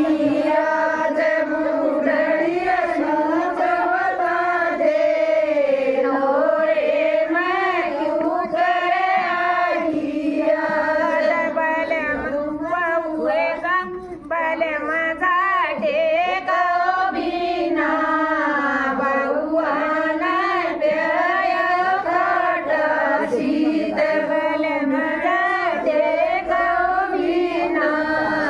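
Women singing a devotional folk bhajan together, their voices wavering and ornamenting the melody, with a brief break about halfway through.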